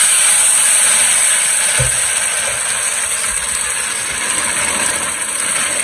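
Sag roti batter sizzling loudly as it is poured into hot ghee in a frying pan and spread with a spoon. The hiss is steady and eases a little after the first couple of seconds.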